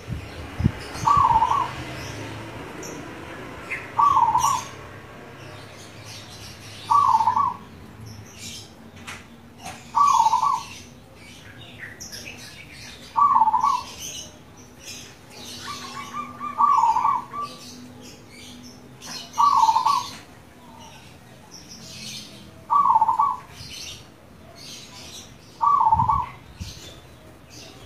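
Zebra dove (perkutut) cooing: a short burbling call repeated about every three seconds, nine times in all, with faint high chirping behind.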